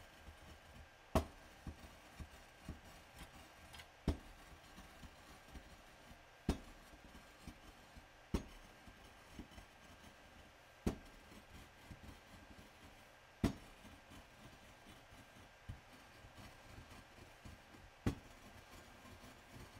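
Pestle rubbed in circles over a glass slab through a layer of dry yellow powder: a soft gritty scraping, broken by sharp clicks of the pestle on the glass, seven of them a few seconds apart.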